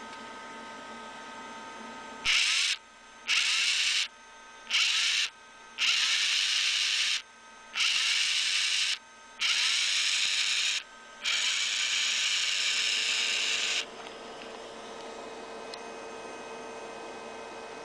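Wire-feed motor of a NIKKEY MIG-220 welder running in seven short bursts. Each burst starts with a quick rising whine as the motor spins up and cuts off abruptly. The last run is the longest, about two and a half seconds. A faint steady hum continues underneath.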